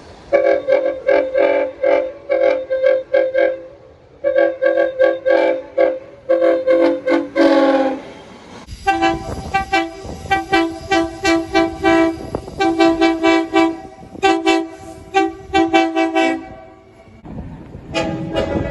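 Train air horns sounding chords in rapid series of short blasts. There are two different horns: the first chord slides down in pitch once near the eight-second mark, and from about nine seconds a second horn toots repeatedly over the rumble of a moving train.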